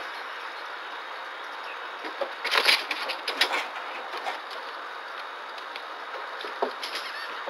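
A small monkey moving about its wire-mesh cage: a burst of quick clicks and rattles about two to three and a half seconds in, and a few lighter ticks near the end, over a steady hiss.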